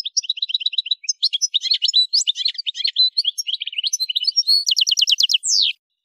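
Algerian goldfinch (Carduelis carduelis parva) singing a fast, twittering song of varied high chirps and trills. It ends in a rapid trill and one falling note, then stops shortly before the end.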